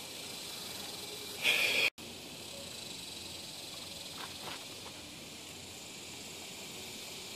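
Steady high-pitched hiss of summer insects droning in the grass and trees, with one louder burst of the same buzz about a second and a half in that cuts off abruptly.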